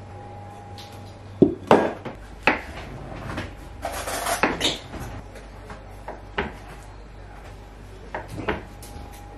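Chef's knife cutting through mushrooms and mozzarella and knocking on a wooden chopping board: a few sharp knocks, a busier run of cuts about four seconds in, then scattered taps.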